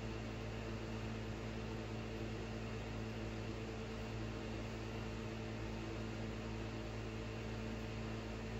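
Steady electrical hum with a constant hiss behind it; no distinct knocks or scrapes stand out.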